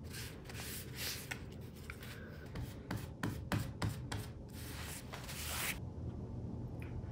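Foam brush rubbing over textured wallpaper in a series of short strokes, spreading a decoupage medium; quieter after about six seconds in.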